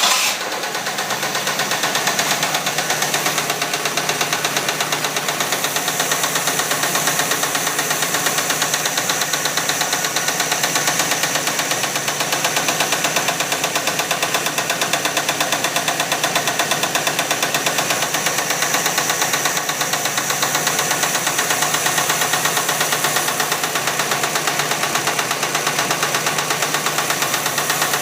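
A Jeep's AMC 258 inline-six idling steadily, with a rapid, even tapping in time with the engine that the owner cannot place as lifter tap or engine knock.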